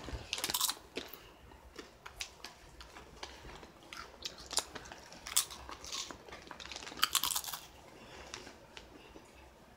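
Spicy Ruffles ridged potato chips crunched and chewed close to the microphone, in irregular crisp bites that thin out near the end.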